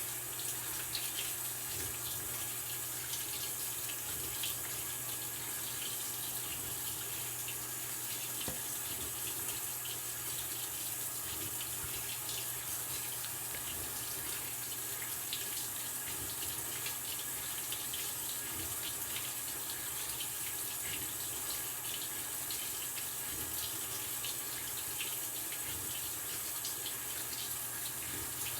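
Maytag Bravos XL top-load washing machine filling its tub: a steady rush of running water with a low hum beneath it throughout.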